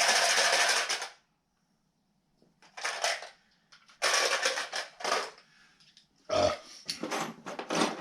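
Metal hand tools clattering in irregular bursts as a pile is rummaged through. A dense rattle in the first second stops abruptly, and separate rattles follow about three, four to five, and six to eight seconds in.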